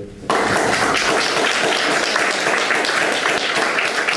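Audience applauding, the clapping breaking out suddenly a moment in and going on steadily.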